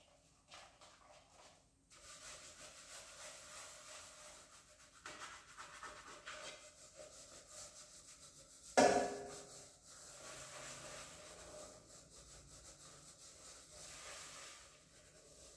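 Scrubbing a metal cooking pot at a kitchen sink: a steady, uneven rubbing and scraping. About nine seconds in there is one sharp clank, the loudest sound, with a brief ring.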